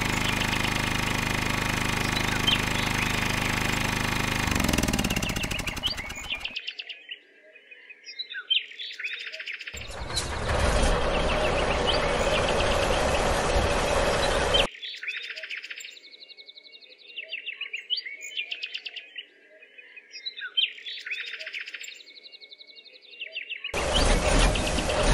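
A small motor running with a hum and rattling noise, slowing in pitch and stopping about six seconds in; birds chirp repeatedly in the gaps, and the motor noise starts up again twice, for about five seconds in the middle and again near the end.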